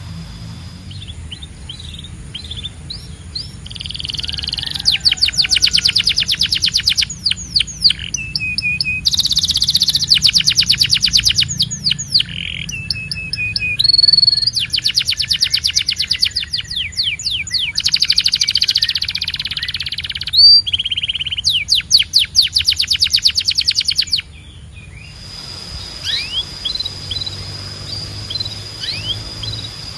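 Canary singing long, fast trills of rapidly repeated notes, broken by short pauses between phrases, then turning to softer scattered chirps about 25 seconds in. A faint low hum runs underneath.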